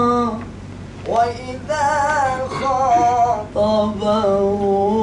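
A man's voice chanting Quranic recitation in long, drawn-out notes that slide and waver between pitches, in a melodic mode (maqam), with a short break about a second in.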